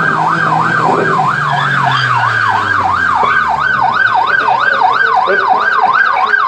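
Police car siren in a fast yelp, its pitch sweeping up and down about three times a second.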